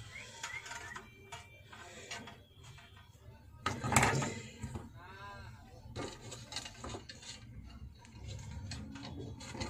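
Small clicks and metallic clatter of tools and wires being handled while connecting the input wiring of a voltage stabilizer, with one louder knock about four seconds in.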